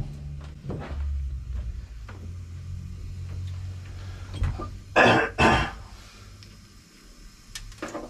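A person coughing twice about five seconds in, over a low steady hum that fades away near the end.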